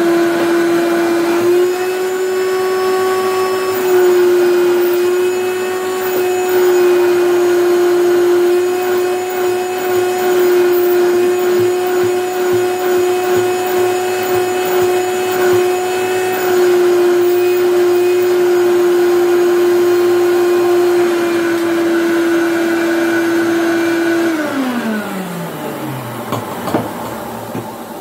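A 1997 Hoover Turbopower U1060 upright vacuum cleaner running with a loud, steady howl; the owner says the machine needs a service and its cooling fan some work. Its pitch steps up slightly a second or so in and drops back about sixteen seconds in; near the end it is switched off and the howl falls away in pitch as the motor winds down, followed by a knock.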